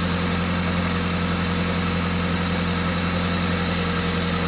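Toyota Celica's 5S-FE 2.2-litre four-cylinder engine running steadily with a newly fitted cold air intake, holding an even note with no revving.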